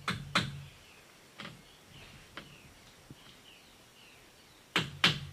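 Hammer knocking on bamboo roofing: a few scattered blows, then near the end a quick, even run of blows about three a second. Faint bird chirps sound between the blows.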